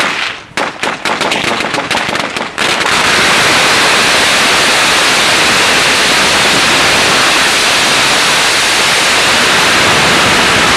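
Two duct-taped rolls of over 32,000 firecrackers going off, loud. For the first couple of seconds there is a quick string of separate bangs, then an unbroken, dense crackle of thousands of reports: the taped roll burns through very fast.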